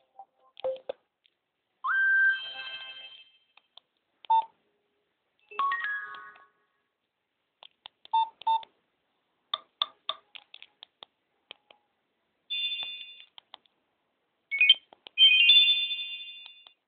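Nokia X2-02 mobile phone playing a run of short electronic alert tones through its small speaker, one after another. There are about eight brief chirps and blips, each lasting a second or less, with short gaps between them.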